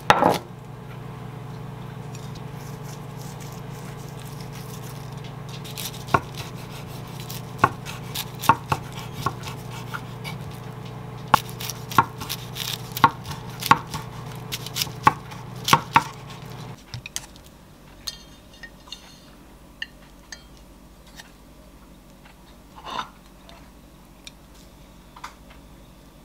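Chef's knife slicing through a gimbap roll, the blade knocking on a wooden cutting board in a run of a dozen or more cuts. Under it a microwave oven hums steadily, then stops about two-thirds of the way through.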